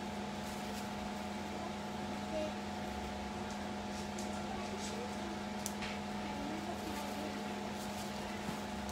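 A steady machine hum with several fainter steady tones above it, under a few faint clicks from a knife slitting the plastic film wrapped around a ground beef chub.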